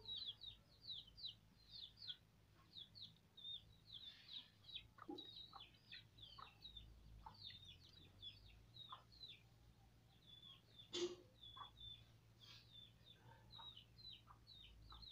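Faint bird chirping: a steady run of short, falling high notes, several a second. About eleven seconds in there is one sharp click, the loudest sound.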